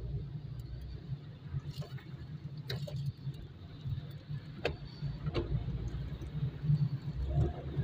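Low road and engine rumble inside a moving car's cabin on a wet road, with a handful of scattered sharp ticks of raindrops hitting the windshield. The rumble swells near the end.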